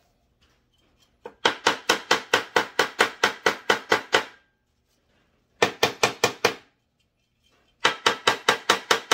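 Stihl TS 350 Super cut-off saw muffler rapped repeatedly against a workbench to knock out the carbon clogging it. There are three runs of quick sharp knocks at about six a second: a long run of nearly three seconds and two shorter ones near the end.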